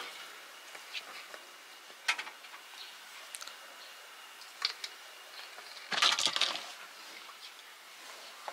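Hands working a large mass of bread dough: scattered soft clicks and taps, with one louder brief rustling scrape about six seconds in as the dough is pulled from an enamel basin onto a floured wooden board.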